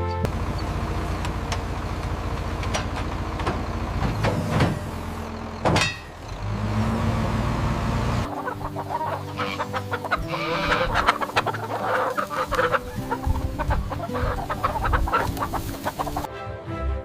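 A low rumble for the first half, then a flurry of chickens clucking and squawking over steady held notes.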